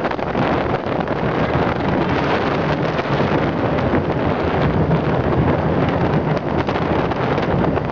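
Steady loud rushing rumble of the Piratenbaan ride car running fast along its track, with wind buffeting the microphone.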